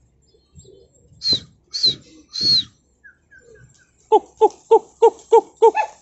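Loud whistle-like calls around a pigeon loft as the flock flushes into flight: three high calls about a second in, a few faint chirps, then six quick, evenly spaced calls with falling pitch near the end.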